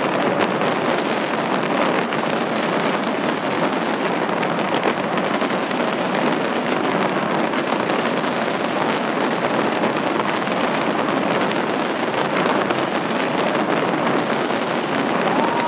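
Fireworks display: a dense, unbroken crackling and popping of many shells going off at once, with no single bang standing out.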